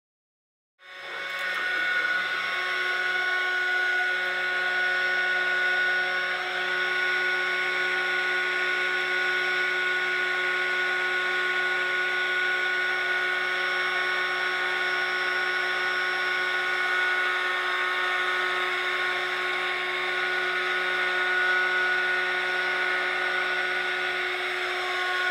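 Small handheld heat gun running steadily, its fan motor giving a rush of air with a steady high whine. It starts about a second in.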